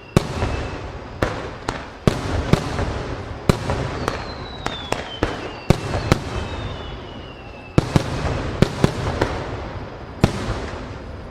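Aerial fireworks shells bursting in a rapid barrage: many sharp booms, each with a trailing rumble and crackle. One whistle glides down in pitch about four seconds in.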